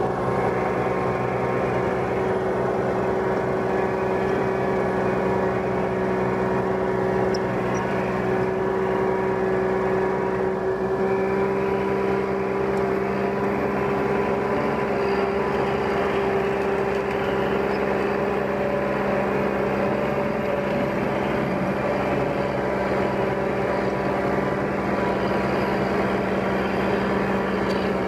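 Diesel engine of a loaded Ponsse forestry forwarder running steadily under load, a constant drone whose pitch creeps up slightly about halfway through.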